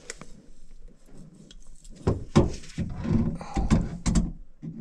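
Hollow knocks and clunks of a white plastic sink drain trap and its fittings being handled and worked loose by gloved hands, with rustling in between; the loudest knocks come about two seconds in and again near the end.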